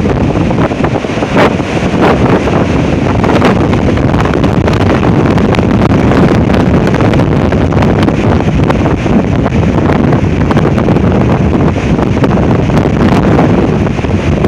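Strong gale-force wind, sustained around 40 to 45 mph with gusts over 60 mph, buffeting the microphone in a loud, continuous low rumble with frequent crackling gust hits.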